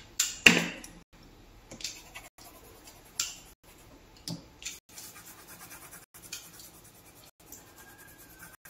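A series of short scratching and rubbing strokes, one every second or so, the loudest about half a second in.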